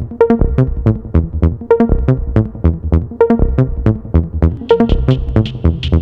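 Electronic background music with a steady, fast drum-machine beat and synth notes; a high hissing layer comes in near the end.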